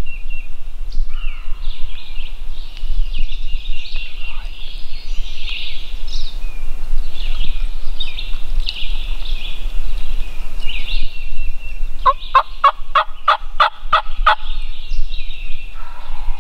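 Songbirds singing, and about twelve seconds in a wild turkey gobbler gobbles: a fast, rattling run of about ten notes lasting a couple of seconds.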